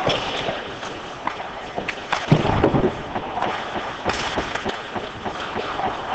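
Ice hockey play at rink level: skates scraping and sticks and puck clicking on the ice, with a loud thump about two seconds in.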